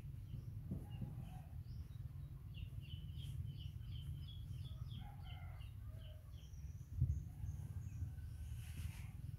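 A run of short high chirps, about three a second, over a steady low rumble, with one thump about seven seconds in.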